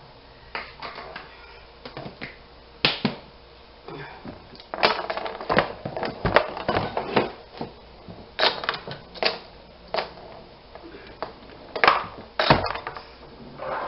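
Irregular clicks and knocks of plastic kitchenware being handled and set down on a countertop: a yellow plastic measuring cup and a plastic oatmeal container with its lid, a cluster of clattering about halfway through and a heavier knock near the end.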